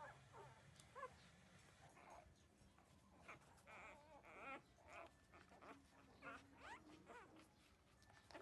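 Thirteen-day-old puppies nursing, giving faint, short, squeaky calls, several a second at times, some sliding up in pitch.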